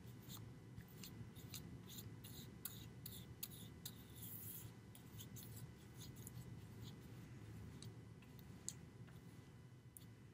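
Faint scratchy swishes of a paintbrush dragged back and forth over a masonite board, smoothing out a wet coat of gesso primer in short, irregular strokes.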